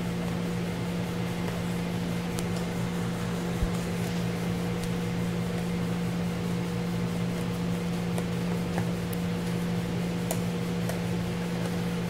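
A steady mechanical hum with a low, constant tone, such as a room fan or air conditioner makes, with a few faint clicks, the clearest about four seconds in.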